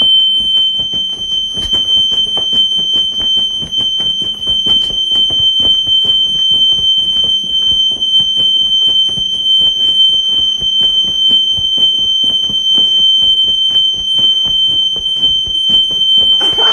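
Smoke alarm sounding one continuous high-pitched tone, set off by smoke from a candle fire. Irregular clicking and knocking runs under it throughout.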